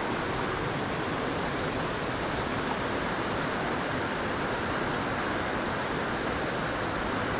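Small mountain stream rushing over rocks: a steady, even water noise.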